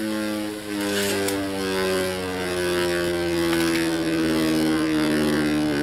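Beyblade Burst top on a smooth plastic Yielding driver spinning on the floor of a plastic stadium: a steady humming whir whose pitch slowly falls.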